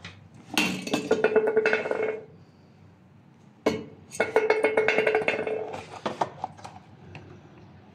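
Metal door of a cemetery register box creaking on its hinge: two long, strained creaks, the second starting about three and a half seconds in and lasting longer.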